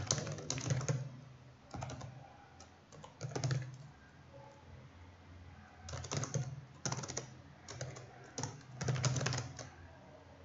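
Typing on a computer keyboard: several bursts of quick keystrokes with short pauses between them.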